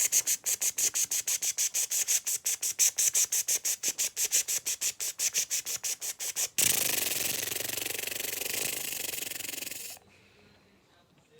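A person imitating a sprinkler with their mouth: a fast, even run of hissing 'tch' sounds, about seven a second, then a steady hiss of about three seconds that cuts off suddenly.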